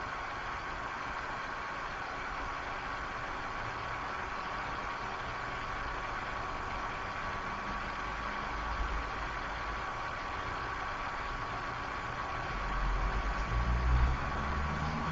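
Steady hiss of an open voice-chat microphone line, with a faint steady tone running through it. A low rumble grows louder near the end.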